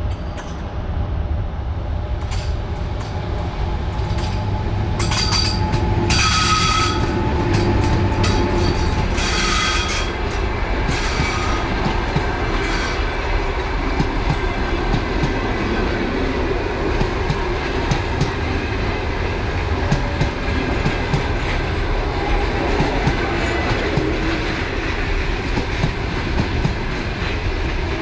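An ЭП1М (EP1M) AC electric locomotive hauling a passenger train draws near and goes past, and then its coaches roll by: a loud, steady rumble with the clickety-clack of wheels over the rail joints. Several short high-pitched bursts ring out between about five and thirteen seconds in, as the locomotive passes.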